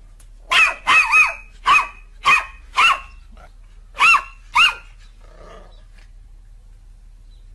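Black-and-tan puppy barking: eight short, high-pitched barks, six in quick succession and then two more after a brief pause.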